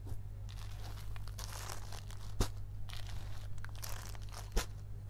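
Folded embroidered net sarees rustling and crinkling as they are handled and laid in a row. Two sharp clicks, about two seconds apart, sound over a steady low hum.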